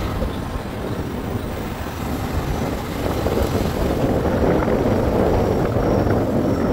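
A moving vehicle's road noise mixed with wind rushing over the microphone, a steady dense rumble that grows a little louder about halfway through.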